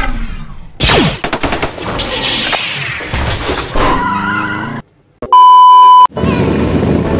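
Electronic transition sound effects: glitchy whooshes and sharp hits with a falling swoosh about a second in, then a brief gap and a loud, steady test-tone beep lasting under a second with the TV colour bars. About six seconds in, it gives way to steady noise from a boat under way.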